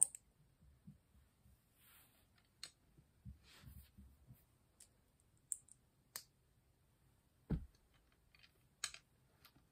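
Plastic LEGO pieces being handled and pressed together: scattered faint clicks and taps, with one sharper click about seven and a half seconds in.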